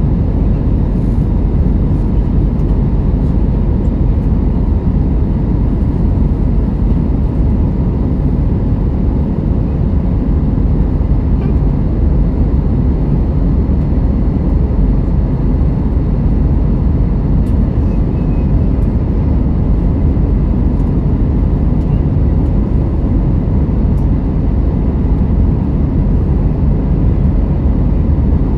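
Steady low rumble of a jet airliner's cabin in flight: engine and airflow noise, with a few faint steady tones above it.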